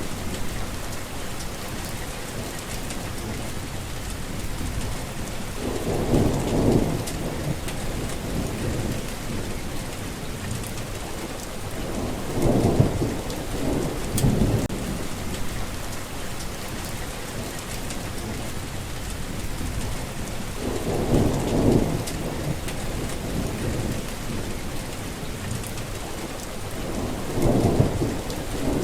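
Steady heavy rain falling, with low rolls of thunder rumbling up four times, roughly every seven seconds.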